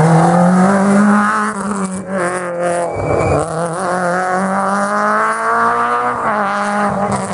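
Small hatchback rally car's engine revved hard under full throttle, the note climbing through the gears with brief dips at the shifts before holding a high pitch near the end.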